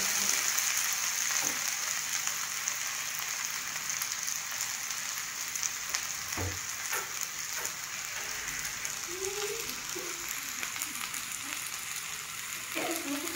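Sliced potatoes sizzling steadily in hot oil in an open frying pan, with a light knock about halfway through.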